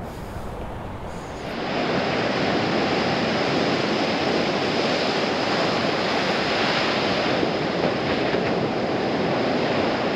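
Rough ocean surf breaking on the beach, with wind on the microphone. It becomes loud and steady about a second and a half in.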